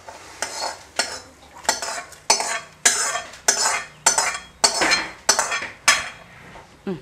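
Steel spatula scraping fried onions out of a pan into a pressure cooker: about ten quick metal-on-metal scraping strokes, a little under two a second.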